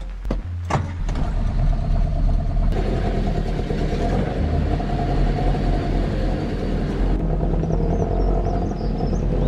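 1969 Triumph Herald's four-cylinder engine running steadily, after a couple of clicks in the first second.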